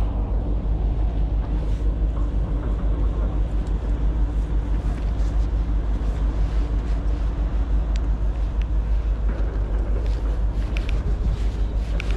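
A steady low rumble, like a running vehicle engine, with a few faint clicks near the end.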